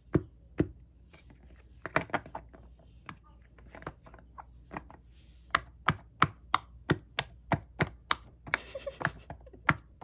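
Small silicone pop-it fidget toys being popped bubble by bubble with a fingertip, each press a sharp pop. The pops come scattered at first, then settle into a steady run of about three a second from about halfway in.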